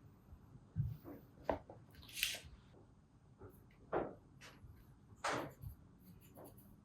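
Handling noise from a two-stroke motorcycle carburettor and its parts being turned over and set down: a handful of small, irregularly spaced clicks and knocks.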